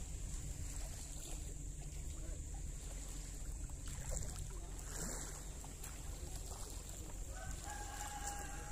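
Steady low wind rumble on the phone's microphone over calm sea. Near the end a distant rooster crows once, a drawn-out call.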